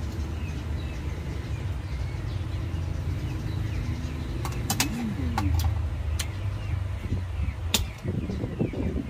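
Steady low rumble, with a few sharp clicks of oyster shells and forks against ceramic plates from about halfway through. A bird coos once about five seconds in.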